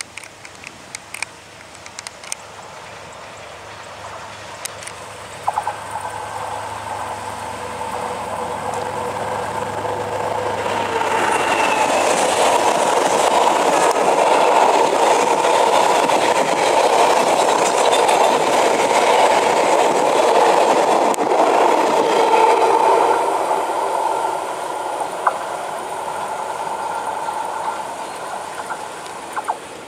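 A passenger train passing close by: the rumble and rattle of its coaches' wheels on the rails builds, is loudest for about ten seconds in the middle, then fades as the train moves away. A few sharp clicks stand out.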